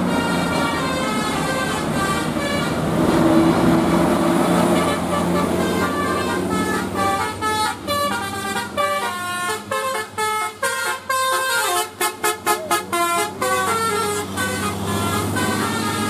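Indonesian bus 'telolet basuri' multi-tone horn playing a tune of stepped notes, breaking into quick short toots in the middle, with the bus engine running underneath as a steady low hum.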